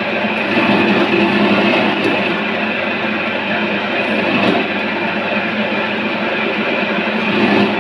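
Electric chicken-cutting machine running steadily, a continuous mechanical noise with slight swells in level.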